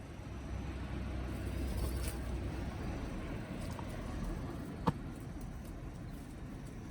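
Low, steady rumbling background noise that swells over the first couple of seconds, with a single sharp click about five seconds in.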